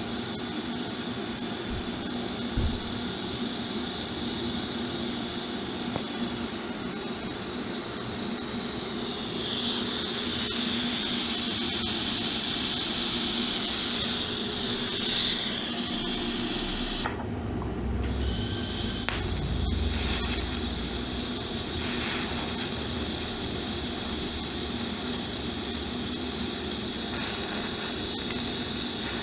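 TIG welding on a motorcycle frame: a steady arc hiss and buzz that swells and wavers in the middle, with a brief low rumble a little past halfway.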